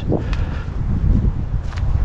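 Wind buffeting the microphone, a steady low rumble, with two faint footfalls on the track bed.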